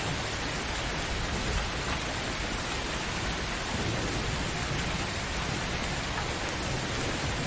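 Steady heavy rain falling on a surface, an even dense hiss, with a low rumble of distant thunder building in about halfway through.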